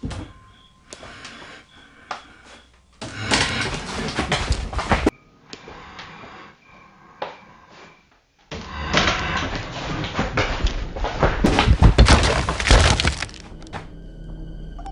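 Loud clattering and crashing noise made of many quick knocks and thuds, in two stretches: about two seconds long, then about four seconds long after a quieter gap with scattered knocks.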